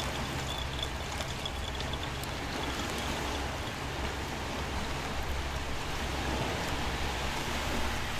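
Steady rushing of sea waves washing on the shore.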